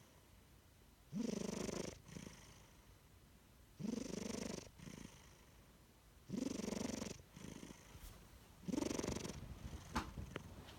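Sleeping cat snoring: four snores about two and a half seconds apart, each followed by a fainter breath. A short sharp click about ten seconds in.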